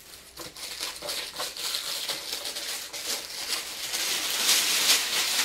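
Rustling and crinkling of a thin protective wrapping sheet being handled and pulled off a soundbar, growing louder about four seconds in.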